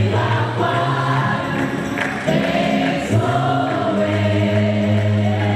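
Gospel music: a choir singing held notes over a steady bass line.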